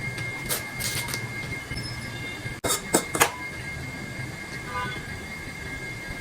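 Crunchy bites and chewing of food: two brief clusters of crackling crunches over a steady background hum with a constant high whine.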